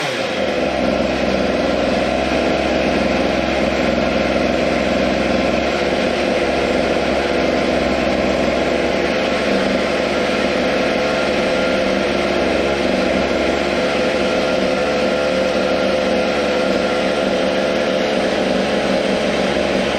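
Water-cooled Zenoah G300PUM two-stroke engine of a Go-Ped Sport running on its stand with no load, holding a steady fast idle with the throttle untouched. The engine has a Walbro WT-668 carburettor whose idle screw is turned well in.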